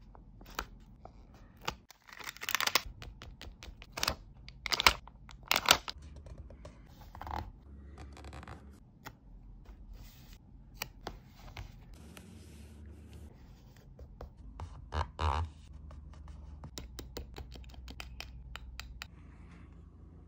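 Close-up paper-crafting sounds: clear plastic stickers peeled off their backing sheet with tweezers, giving several loud rasping, tearing peels in the first few seconds and another near the middle. Between them, fingers rub and press the stickers onto a paper journal page, with scattered small clicks and taps.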